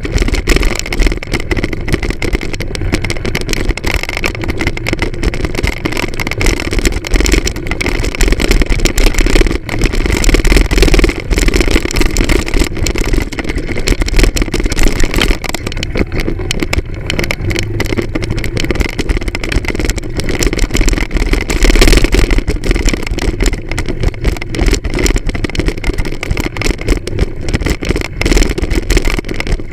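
Moped engine running as it is ridden over a dirt track, the engine note rising and falling, with heavy wind and road noise on the microphone.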